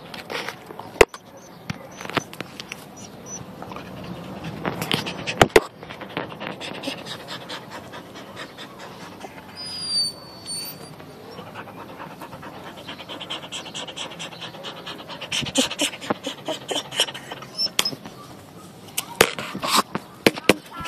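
A dog panting right at the microphone, with sharp clicks and rubbing as its snout and tongue brush against the phone while it licks at it. A short high whine about ten seconds in.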